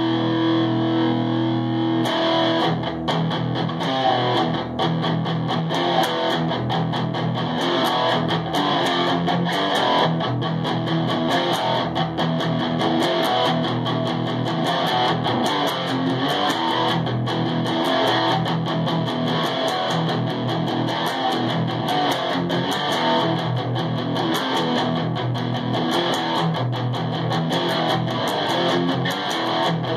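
Electric guitar played through an amplifier: a chord rings for about two seconds, then steady rhythmic strumming.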